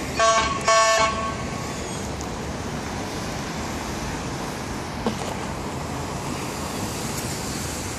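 A car horn gives two short toots in the first second, followed by steady traffic noise from passing cars.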